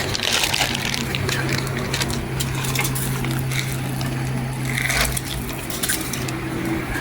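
Fire in a grill crackling, with scattered irregular clicks and a knock about five seconds in, over a steady low hum.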